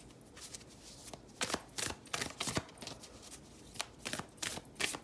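A deck of oracle cards being shuffled by hand: quick, irregular card slaps and flicks in two short runs, with brief pauses between.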